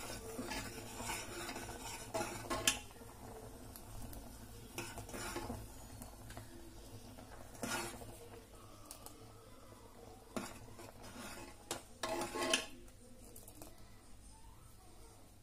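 Metal spoon stirring simmering milk payasam in an aluminium pressure-cooker pot, scraping and clinking against the pot's sides and bottom at irregular intervals while the payasam is reduced and thickened.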